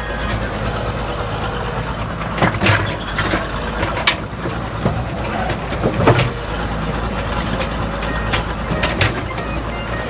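Toy construction truck's engine sound, a steady low rumble, with a few sharp knocks about 2.5, 6 and 9 seconds in.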